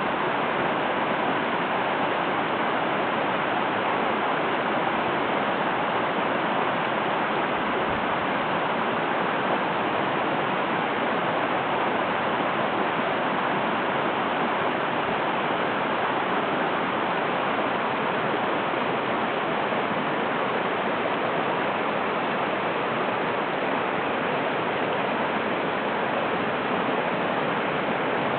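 Steady rushing murmur of a mountain river flowing over rocks, without a break.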